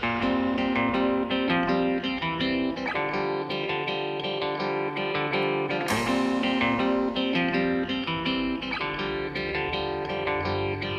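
Background music: a plucked guitar piece with notes picked in a steady flow.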